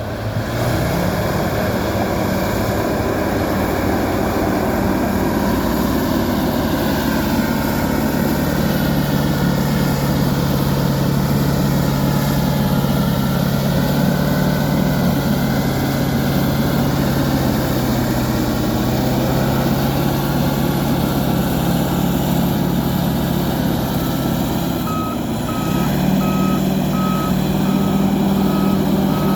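Bulldozer's diesel engine running steadily under load; its note drops a few seconds in and rises again near the end. At the same point a reversing alarm starts beeping at a steady pace.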